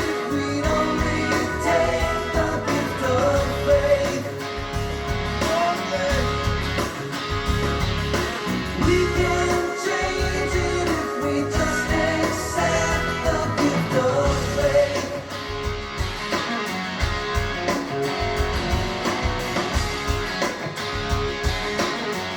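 A song with a singer and guitar, played back through a sound system under test.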